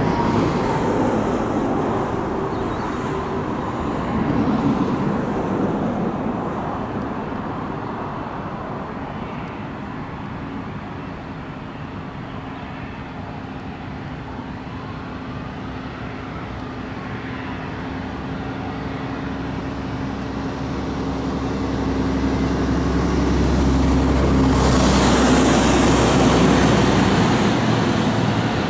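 Boeing 787-10 jet engines at takeoff thrust: a continuous rushing jet noise with a low steady drone. It grows louder in the last third and is at its loudest shortly before the end, with more hiss, then falls off.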